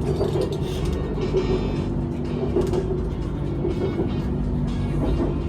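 Bangkok BTS Skytrain EMU-B1 electric train heard from inside the carriage while running between stations: a steady rumble of wheels on the rails with a constant motor hum of a few steady tones.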